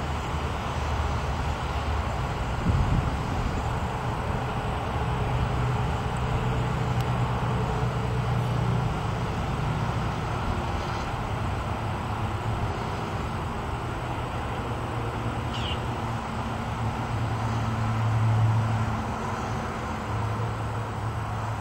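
Small three-bladed wind turbine spinning in high wind: a low hum that drifts up and down in pitch, under a steady rush of wind across the microphone.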